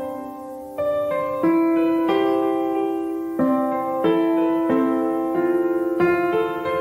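Background piano music: slow, held notes and chords, with a new chord struck about every second.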